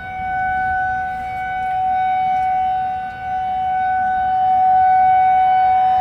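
Outdoor tornado warning siren sounding one steady, unwavering tone, its loudness swelling and fading every couple of seconds.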